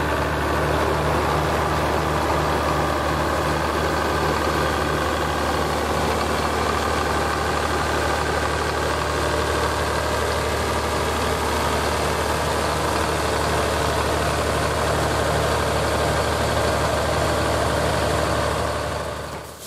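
Old Farmall tractor's engine running steadily at low revs while the tractor pulls slowly forward. There is a deep, even hum, with a regular pulse in the low note for about the first six seconds that then smooths out.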